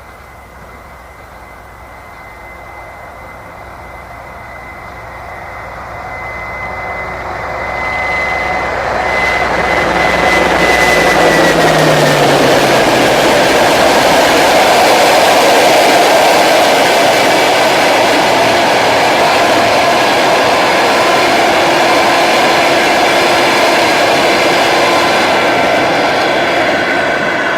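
TEP70 diesel locomotive approaching at speed with a high steady whine and engine note, both dropping in pitch as it passes about eleven seconds in. A long passenger train then rolls past loudly with continuous wheel and rail noise.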